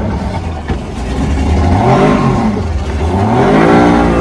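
Tohatsu outboard motor revving as the throttle is opened. The engine note rises about two seconds in, dips briefly, then climbs again and holds high near the end.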